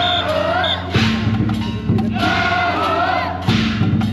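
Festival rehearsal of a Nagasaki Kunchi dragon-boat troupe: a group of men chanting together in short phrases, alternating with heavy percussion. The chanting comes at the start and again midway, and the percussion comes between them and near the end.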